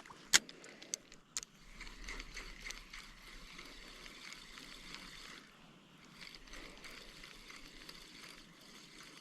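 Faint water sounds, the gentle lapping and trickle around the fishing boat, with one sharp click under half a second in and a couple of small clicks just after.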